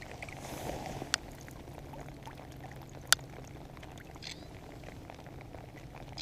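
Steady patter of rain over a low steady hum, with two sharp clicks, a faint one about a second in and a louder one about three seconds in.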